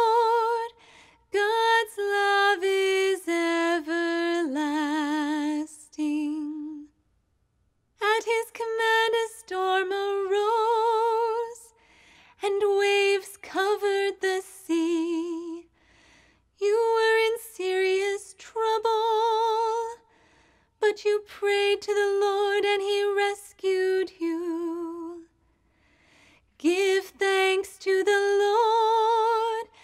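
A woman singing a responsorial psalm unaccompanied, in short phrases with brief pauses between them and vibrato on the held notes.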